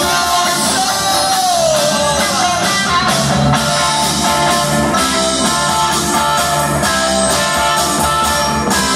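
Live rock band playing an instrumental passage: electric guitar over bass and drum kit with steady cymbal hits, and a note sliding down about two seconds in.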